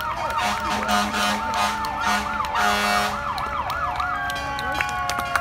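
Emergency vehicle siren sounding a fast yelp, rising and falling about three or four times a second. About four seconds in it stops, and the pitch glides down slowly.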